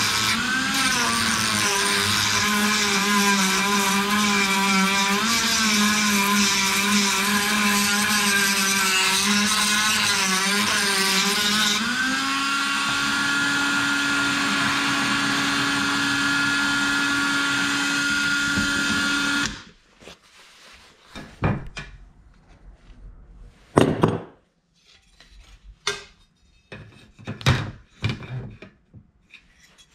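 High-speed rotary tool with a sanding drum grinding out a hole in an aluminum wing spar. Its whine wavers in pitch as it bears on the metal, then rises about twelve seconds in and runs steady before cutting off suddenly. Scattered light clicks and knocks follow.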